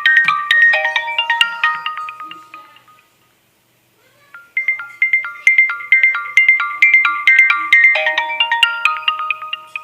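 Nokia 3110 classic mobile phone playing a ringtone through its loudspeaker: a fast melody of bright electronic notes that fades out about three seconds in. After a second or so of silence, quick notes start again about four and a half seconds in.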